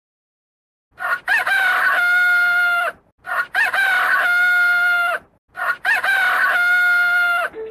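Rooster crowing three times in a row, each crow about two seconds long and alike in shape, after about a second of silence.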